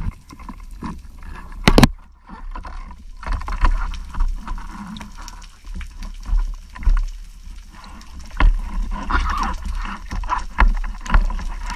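Muffled underwater sound picked up by a camera in a waterproof housing: water rushing past and low thumps as the diver moves, with one sharp knock a little under two seconds in.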